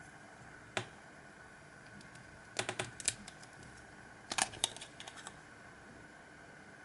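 Mobile phone keypad buttons being pressed, likely on a Siemens CL50: one click about a second in, then two quick runs of clicks a little before halfway and around two thirds of the way through. A faint steady high whine sits underneath.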